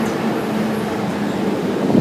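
Steady running noise of a moving vehicle, an even rumble with a low drone under it.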